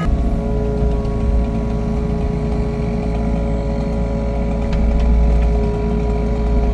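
An engine running steadily at an even speed, with a deep rumble and a steady whine over it.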